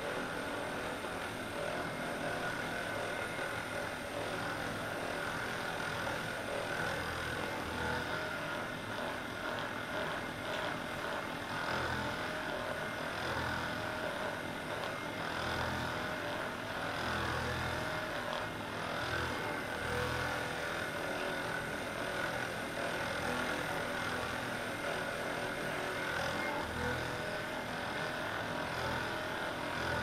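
Hypervolt percussive massage gun running steadily while pressed into the muscles of a person's back: a motor buzz with a steady whine over a low throb that comes and goes.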